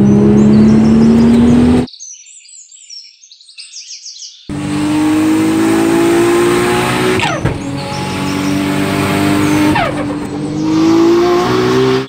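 Turbocharged straight-six of a Nissan Skyline R34 accelerating hard, its note climbing steadily and dropping sharply twice in the second half. The engine cuts out for about two and a half seconds after the first two seconds, leaving faint outdoor chirps, then comes back loud.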